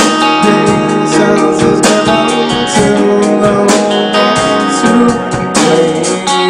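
Live rock band playing an instrumental passage: two electric guitars strumming chords over a drum kit keeping a steady beat.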